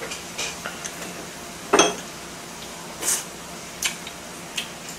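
Tableware being handled during a meal: a few separate clinks and knocks of utensils against dishes, the loudest about two seconds in, over a faint steady hiss.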